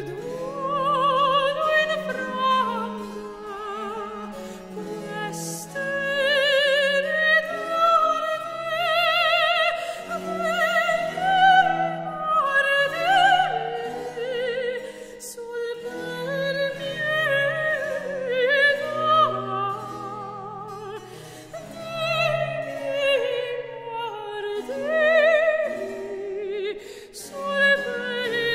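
Classical background music: a high operatic voice singing with vibrato over an instrumental accompaniment.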